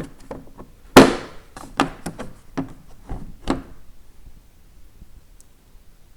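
Sockets from a mechanics tool set being handled: a sharp knock about a second in, then several lighter clicks and taps that stop about halfway through.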